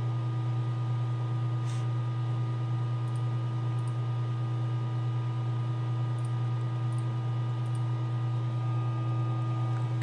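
Steady low machine hum with a few fainter steady higher tones, and a few faint ticks.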